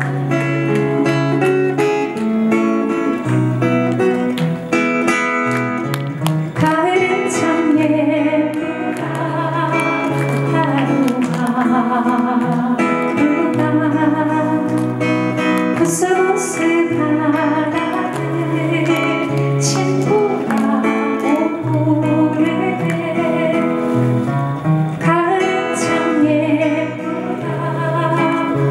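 A woman singing to her own acoustic guitar. The guitar plays alone at first, with a recurring low bass note, and her voice comes in about six or seven seconds in and carries on over the strumming.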